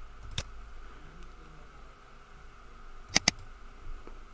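Computer mouse button clicks: a single click, then a quick double-click about three seconds in, opening a folder.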